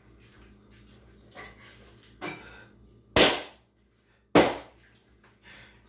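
Balloons popping: two loud, sharp pops about a second apart, each ringing briefly in the room, with a fainter crack just before them.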